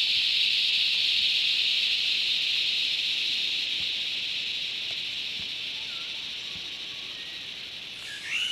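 Chorus of cicadas, a steady high-pitched buzz that slowly fades. A bird gives a short call near the end.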